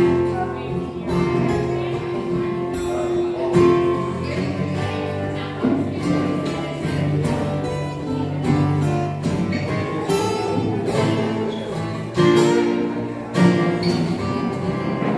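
Two acoustic guitars strummed together in a live song, with a woman singing long held notes over them.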